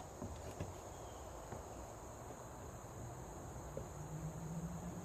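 Steady, high-pitched chirring of insects in the surrounding woods, with a few faint clicks early on.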